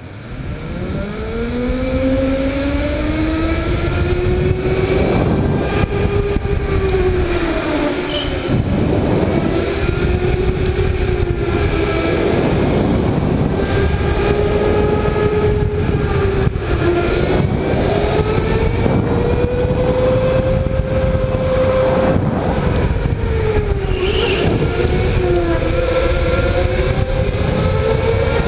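Electric go-kart motor whining under way. Its pitch rises steeply over the first two seconds, then swells and dips again and again with the kart's speed through the bends, over a continuous low rumble.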